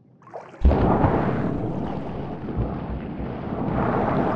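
A sudden heavy splash about half a second in, as a body plunges into water, followed by continuous churning, rushing water.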